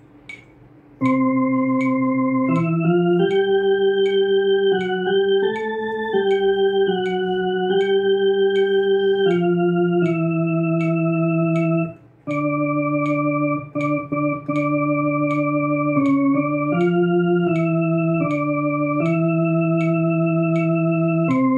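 Electronic organ playing a slow hymn passage with one hand, held notes changing every second or so, with a short break about halfway. A metronome clicks steadily underneath at 80 beats a minute.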